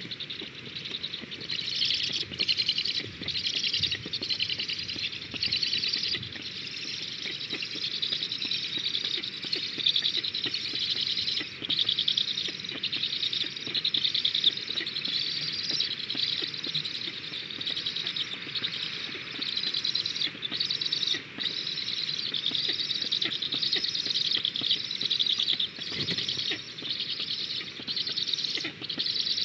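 Black stork nestlings begging for food as an adult arrives at the nest. The calls are high-pitched and come in quick pulses; they start suddenly and keep up with only brief breaks.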